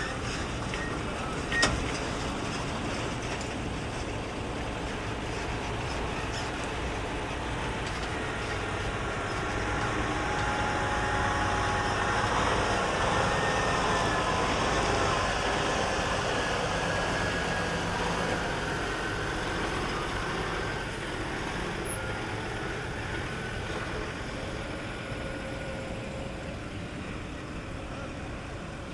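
Engines of large decorated trucks running. One grows louder about a third of the way in and fades again after the middle, and there is a sharp click about two seconds in.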